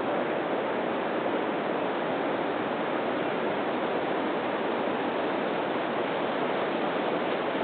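Steady rushing wash of surf breaking on a sandy beach, even and unbroken with no separate wave crashes.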